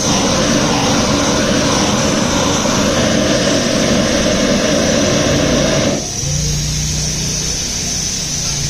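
Loud, steady roar of workshop machinery that drops sharply about six seconds in, leaving a low hum and a high hiss.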